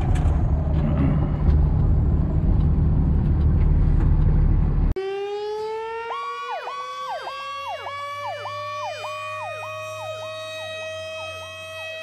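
Fire engine's diesel running with a deep steady rumble while stationary, which cuts off about five seconds in. Emergency sirens follow: one tone slowly winds up in pitch, while an electronic siren sweeps down and back up about twice a second.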